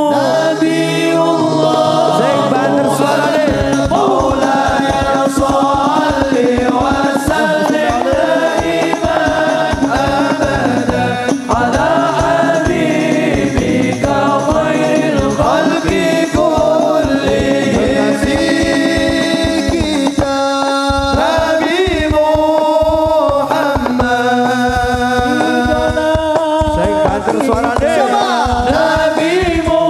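Men's voices singing Arabic sholawat, a devotional chant in praise of the Prophet, through a sound system, several voices together. A low drum beat comes in under the singing about three seconds in.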